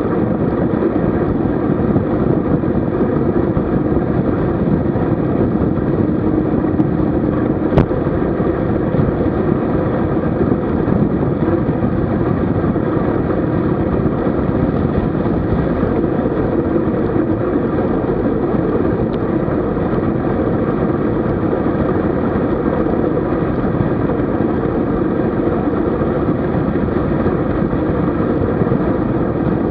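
Steady rush of wind buffeting a bike-mounted camera's microphone while riding a road bike, mixed with road noise. There is one sharp click about eight seconds in.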